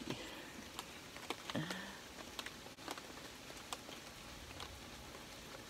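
Faint, irregular ticks of raindrops pattering on a tarp, over a soft steady hiss, with a short low murmur from a person about a second and a half in.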